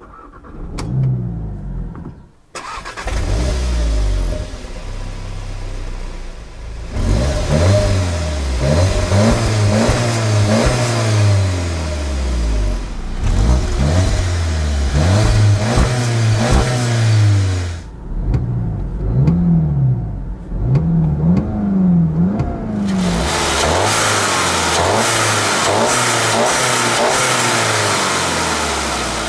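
SEAT Leon Cupra 280's turbocharged 2.0-litre four-cylinder TSI engine starting and running in the stationary car. It is revved repeatedly, the pitch rising and falling with each blip, then settles into a steady run near the end.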